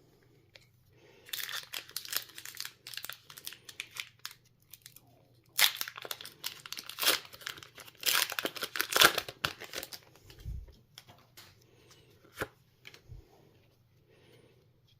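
A foil Pokémon booster pack wrapper being torn open and crinkled, in two spells of crackling. A few light clicks follow.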